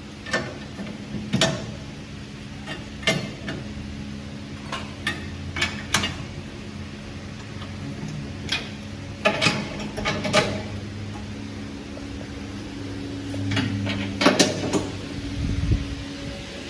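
Irregular metallic clinks and knocks of hand tools on car suspension parts, over a steady low machine hum.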